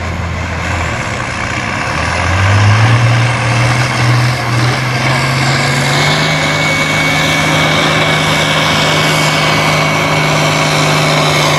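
International Harvester farm tractor's diesel engine pulling a weight-transfer sled: low revs at first, then revving up about two seconds in as the pull starts, rising in pitch, and held at high, steady revs under full load. A thin high whine runs over it from about halfway through.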